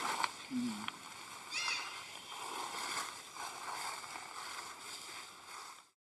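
Water sloshing and splashing in uneven swells, with one short high squeak about one and a half seconds in. The sound cuts off suddenly near the end.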